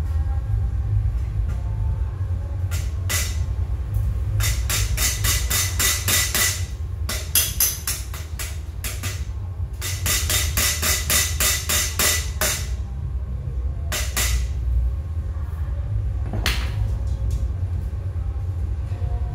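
Hammer blows on steel in two quick runs of about four strikes a second, each lasting a couple of seconds, with a few single knocks around them, over a steady low hum.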